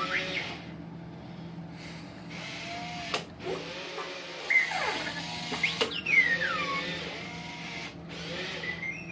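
Remote-controlled R2-D2 toy playing its electronic beeps and whistles, chirps that sweep up and down in pitch, over the steady whir of its motors; a sharp click about three seconds in.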